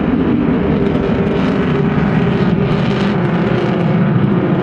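Loud, steady jet noise from a Saab JAS 39 Gripen's single Volvo RM12 turbofan as the fighter flies its display.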